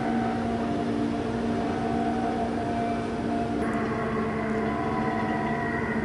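Steady drone of heavy construction machinery engines running. The sound shifts abruptly a little over halfway through.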